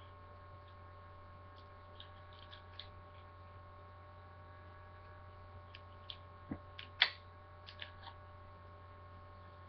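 Steady electrical mains hum, with a few faint clicks and rustles from a phone's USB sync cable and charger being handled out of their packaging. The sharpest click comes about seven seconds in.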